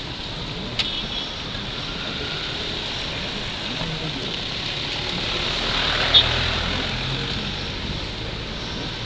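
Road traffic passing close by on wet asphalt: a steady hiss of tyres with vehicle engines underneath, a heavier engine rumble swelling about six seconds in. A sharp click comes about a second in and a short sharp sound about six seconds in.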